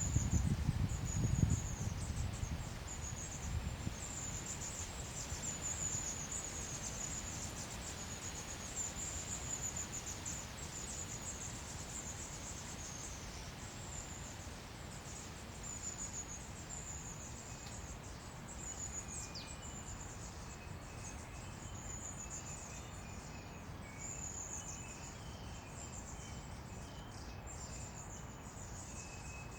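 Natural outdoor ambience: short, very high chirps repeat over a steady hiss, and fainter, lower calls join about two-thirds of the way through. A low rumble fades out in the first couple of seconds.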